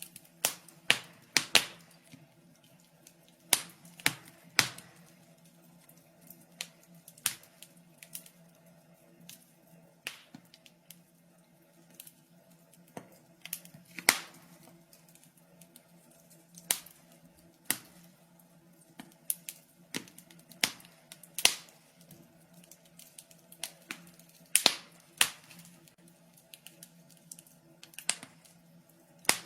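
Wood fire crackling in a fireplace: irregular sharp pops and snaps, some louder than others, a few every couple of seconds.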